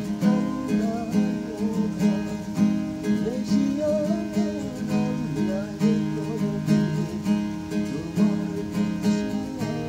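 Acoustic guitar with a capo, strummed by hand in a steady, even rhythm of chords.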